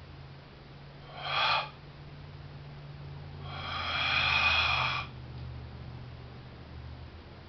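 Two animal calls over a steady low hum: a short one about a second in, then a longer one of about a second and a half.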